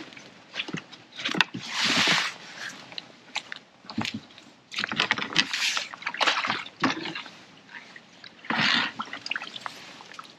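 Water sloshing and splashing in irregular bursts, mixed with sharp clicks and knocks of pole and landing-net tackle being handled.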